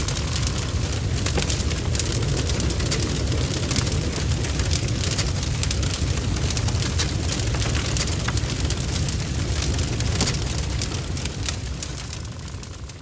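Barn fire burning, heard from inside: a steady low roar of the blaze with dense crackling and spitting, starting to fade out near the end.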